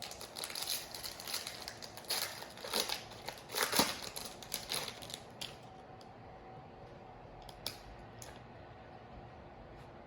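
Foil wrapper of a trading-card pack crinkling and tearing as it is opened by hand: about five seconds of dense rustling, then a couple of faint clicks.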